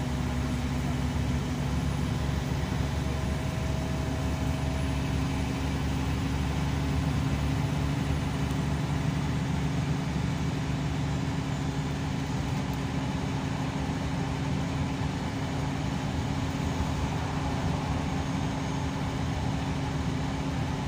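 Scania K340EB coach with Irizar PB body driving along, its engine and road noise heard from inside the passenger cabin as a steady low drone.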